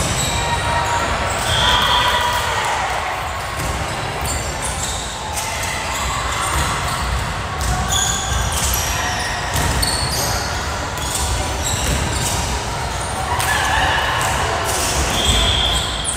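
Sounds of a volleyball game on a hardwood gym court: the ball being struck and bouncing, several short high sneaker squeaks on the floor, and indistinct voices, all echoing in the large hall.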